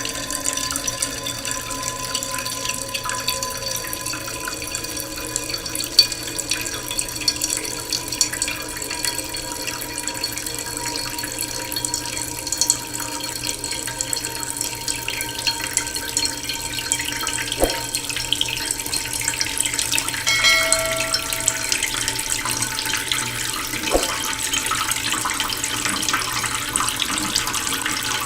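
Waterfall: water falling and splashing in a steady rush. A short whistle-like tone comes in about three quarters of the way through.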